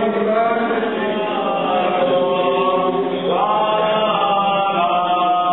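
Greek Orthodox Byzantine chant sung by several voices in held, sustained notes, with a new phrase starting a little past the middle.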